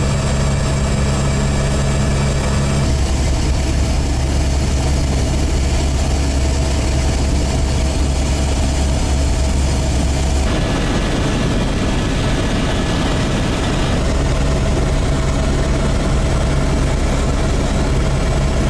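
Helicopter engine and rotor running steadily in cruise flight, a loud constant drone heard from inside the cabin. Its tone changes abruptly about three and ten seconds in.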